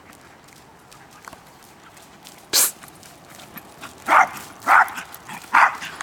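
A dog barking three times in quick succession, a little over half a second apart, after a single short sharp noise about halfway through.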